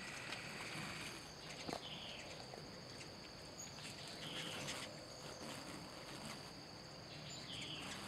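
A steady, high-pitched insect chorus, with three short falling chirps about two, four and a half, and seven and a half seconds in.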